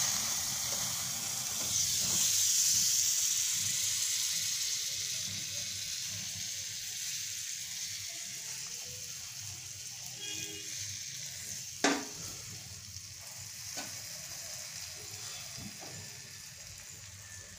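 Butter sizzling in a steel tempering ladle over a gas flame. The hiss is loudest a couple of seconds in and slowly dies away, with one sharp metal clink about twelve seconds in.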